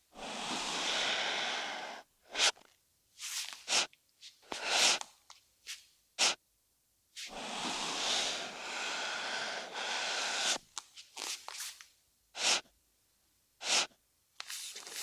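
Cartoon swish sound effects for calligraphy brush strokes: two long swishing sweeps of a few seconds each, with several short, sharp swishes between and after them.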